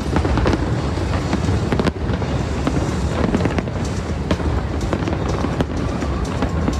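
Fireworks display: many bangs and crackles in quick succession over a continuous rumble.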